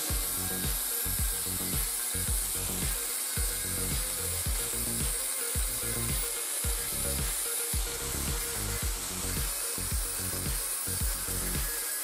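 Angle grinder with a cutoff disc cutting through steel plate held in a vise, a steady high grinding hiss as the disc bites into the metal.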